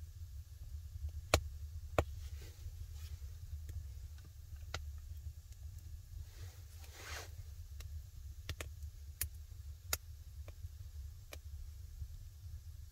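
Scattered sharp crackles from a wood fire burning in a stone fireplace, a dozen or so at uneven intervals, over a low steady rumble. About seven seconds in, a short rustling rub as a hand works seasoning into raw meat on a wooden board.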